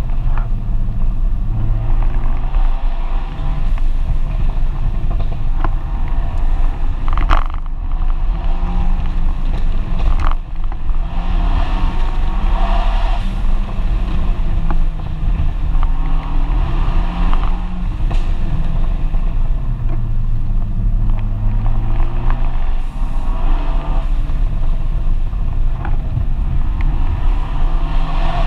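FIAT 124 Spider Abarth's turbocharged 1.4-litre four-cylinder engine running under a hard drive, its pitch rising and falling with throttle and gear changes. Heard from inside the open-topped cockpit.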